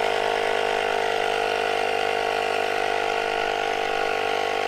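Portable electric tire inflator running steadily, its small compressor pumping air into a bicycle tire, an even hum at one unchanging pitch.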